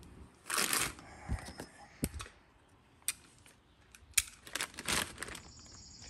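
Thin plastic packaging bag being handled and torn open, in several short crinkling, rustling bursts. A steady high-pitched buzz starts near the end.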